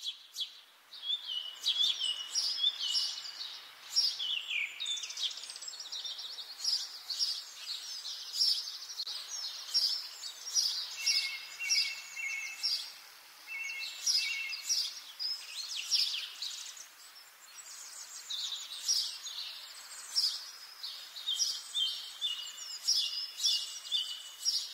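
Songbirds singing in chorus: many overlapping chirps and fast trills, one after another without a pause.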